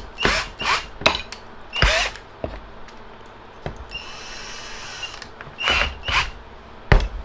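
Ingco cordless drill, fitted with a new 550 motor, spun in short spurts of the trigger while its keyless chuck is held by hand to tighten a 10 mm bit, with a steadier run of about a second in the middle. A sharp click comes near the end.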